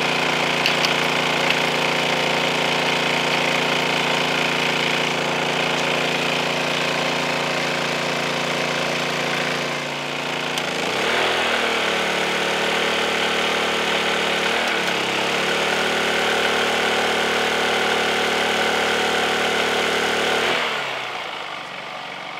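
Honda EU2200i inverter generator running under about 1570 W of heater load. About halfway through, its engine note shifts and wavers as a second space heater's load comes on, and near the end the engine winds down to a much quieter note as the load overloads the generator.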